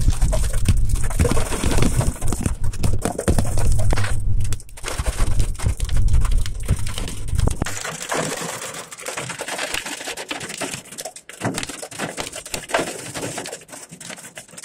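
Hailstorm: hail and heavy rain pelting down in a dense, rapid clatter of impacts. A heavy low rumble runs under it and cuts off suddenly about halfway through.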